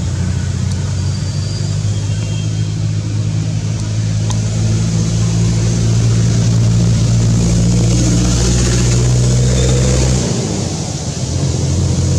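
A motor engine running steadily with a low, even hum, a little louder partway through. Near the end it drops off for about a second, then picks up again.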